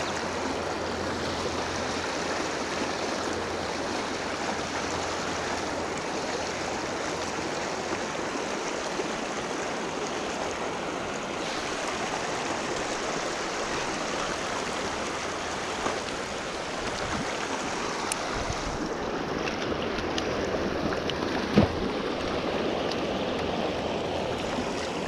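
Steady rushing of water over a shallow, rocky river riffle, with a few faint ticks and one short sharp knock about three-quarters of the way through.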